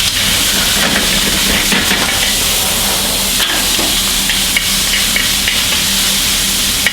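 Diced chicken breast frying in hot oil in a frying pan, a steady loud sizzle with a few short clicks of a utensil against the pan.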